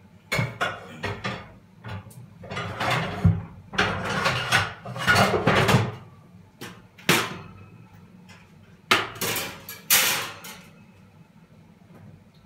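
Kitchen clatter of a frying pan and utensils being handled at the stove: irregular knocks, clanks and short scraping noises with brief pauses between them.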